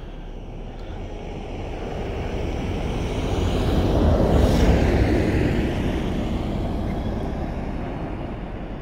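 A car driving past on a snow-packed road. Tyre and engine noise swells to its loudest about four and a half seconds in, then fades as the car drives away.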